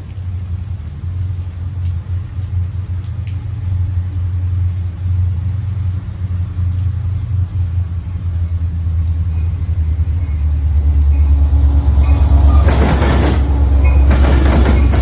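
Train rumbling as it approaches, growing steadily louder, then passing close near the end with loud rushing noise.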